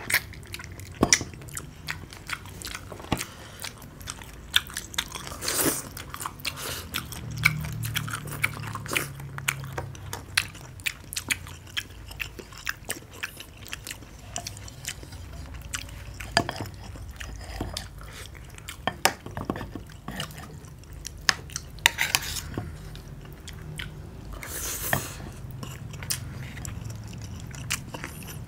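Close-up chewing and biting sounds of people eating fried rice and vegetable stew, with frequent sharp clicks of metal spoons against ceramic plates and a bowl.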